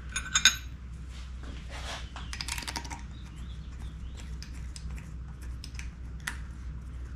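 Steel tools and parts on a Di-Acro bender's table clinking and scraping as they are handled: a few sharp clinks just after the start, scraping around two to three seconds in, and one more click near the end, over a steady low hum.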